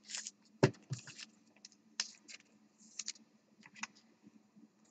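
Scattered light clicks and taps of typing on a computer keyboard.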